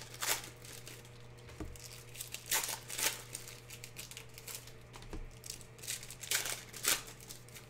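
Intermittent short rustles and crinkles of handling noise, a few louder than the rest, over a faint steady hum.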